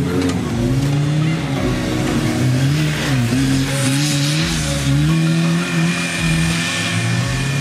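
Off-road vehicle engine running hard, its revs rising and falling again and again as it is driven.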